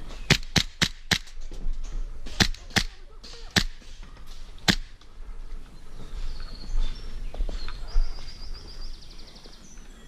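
Airsoft gas blowback pistol, a Tokyo Marui Hi-Capa 5.1, firing eight sharp shots: a quick run of four in the first second, then four more spaced out over the next few seconds.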